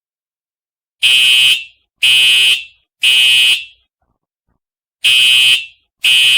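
A fire alarm horn sounds in the temporal-three evacuation pattern, starting about a second in: three loud, high-pitched blasts a second apart, a pause, then the next set of three begins.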